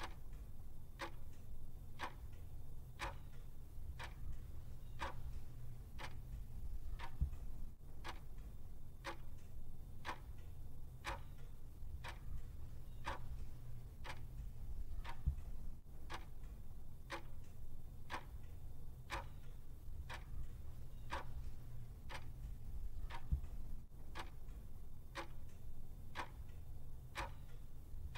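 Quartz wall clock ticking steadily, about once a second, over a low steady hum.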